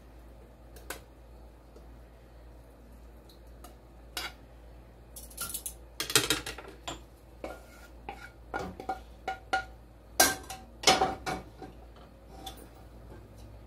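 Metal tongs scraping and knocking against a skillet and a stockpot as pasta in cream sauce is scraped from one into the other. The first few seconds are quiet apart from a single click; a run of clanks and scrapes follows, loudest about six seconds in and again near eleven seconds.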